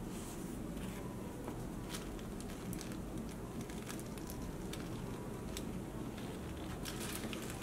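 Handling noise as a nubuck boot is turned over in a cardboard box: scattered light clicks, taps and rustles, thickest near the start and near the end, over a steady low background hum.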